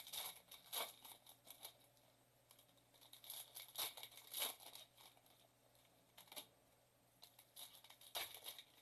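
Foil wrapper of a Bowman Chrome trading-card pack being torn open and crinkled, in a series of short, faint rustles.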